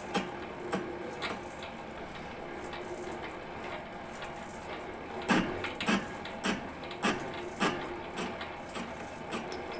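Metal lathe turning a flywheel blank in a four-jaw chuck while the tool takes a facing cut: a steady motor hum with sharp, evenly spaced ticks, which get louder about halfway through.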